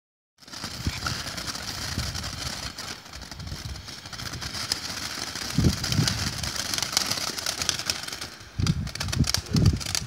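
Ground firework spraying sparks, hissing with dense rapid crackling, starting about half a second in. Several dull low thumps come about halfway through and again near the end.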